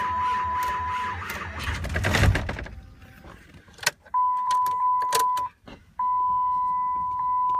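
Steady high electronic warning tone from a Dodge Ram's dashboard with the ignition on and the Cummins diesel not yet running. The tone breaks off about a second in, comes back about four seconds in and again at six seconds, with a loud thud about two seconds in and a few sharp clicks.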